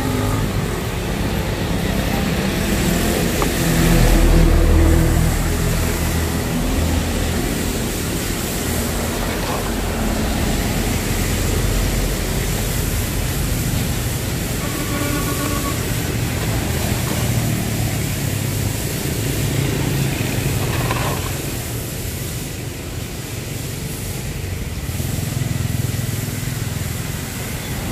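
Street traffic passing close by, motorbikes and cars, a steady rumble that swells as a louder vehicle goes past about four seconds in.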